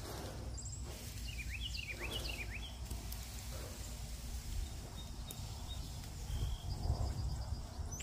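Outdoor background with a steady low rumble. A bird chirps a quick run of short falling notes about a second in, and cut brush rustles near the end as branches are dragged.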